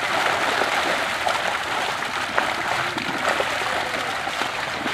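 Pond water splashing and churning steadily as a crowded seine net of Indian major carp (catla, rohu, mrigal) is hauled in, the fish thrashing and leaping at the surface, with a few sharper splashes among the continuous wash.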